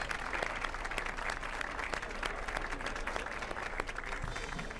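Audience applauding, a dense patter of claps that thins out near the end.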